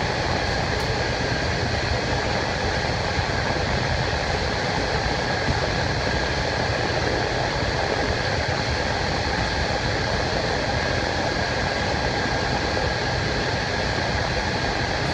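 Steady running noise inside a KiHa 48 diesel railcar under way: wheels on rail and engine blending into a continuous roar with a faint steady hum over it.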